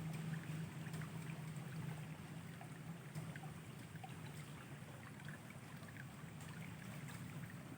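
Faint, steady flowing water of a stream with scattered small ticks, under a low steady hum that slowly fades.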